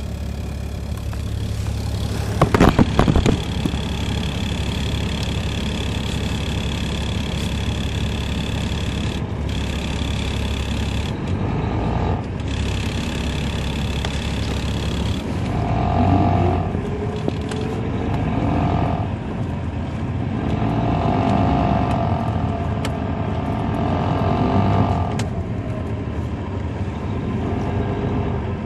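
A 2007 MCI D4500CL coach's Caterpillar C13 diesel heard from inside the cabin. It runs steadily with a high whine over a low hum, and a short loud clatter comes about three seconds in. From about halfway the engine pitch rises and falls in steps as the bus pulls away through the Allison automatic's gears.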